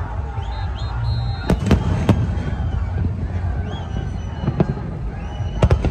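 Fireworks display: a continuous low rumble of shell bursts, with sharp cracks about one and a half to two seconds in, once more later, and a quick cluster near the end.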